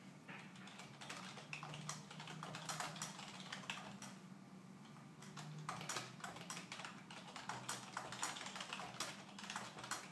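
Typing on a computer keyboard: a quick, irregular run of key clicks, with a short lull near the middle.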